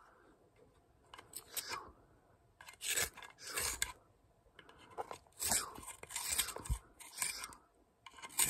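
Pencil being turned in a small handheld plastic sharpener, the blade scraping off wood and graphite in a series of short strokes with brief pauses between them.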